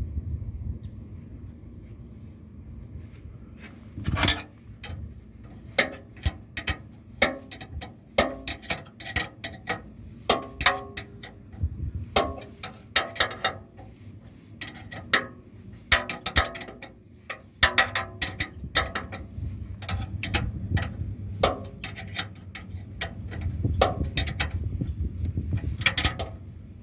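Metal parts of a Craftsman radial arm saw's gear mechanism clicking and clacking irregularly as they are worked by hand, in quick clusters of sharp ticks over low handling rumble.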